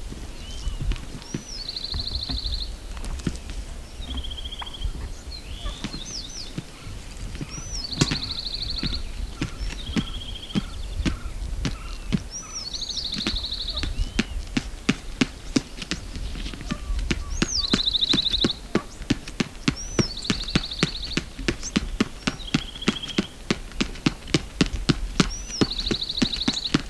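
A songbird sings over and over, each phrase a quick rising whistle followed by a short buzzy trill. Under it runs a steady series of footfalls on hard, stony ground, which come thicker and faster in the second half.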